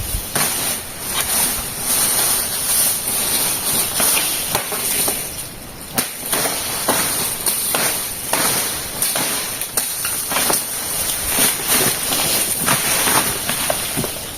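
Irregular sharp cracks and rustles of broken peach palm fronds and stems being cut by hand, over a steady high-pitched hiss.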